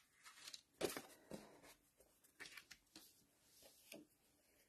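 Near silence broken by a few faint rustles and taps of paper and cardstock being handled, the clearest about a second in.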